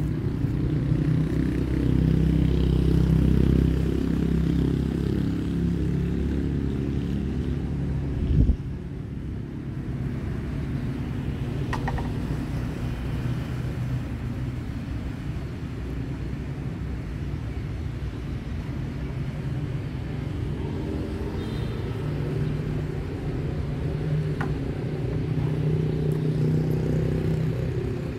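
Low, continuous rumble of road traffic or idling vehicles, with one sharp thump about eight and a half seconds in.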